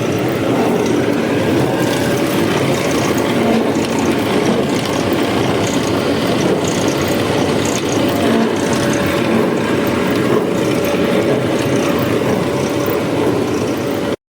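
Continuous charcoal carbonizer running: a steady mechanical rattle and hum from its drive and conveying parts, cutting off suddenly near the end.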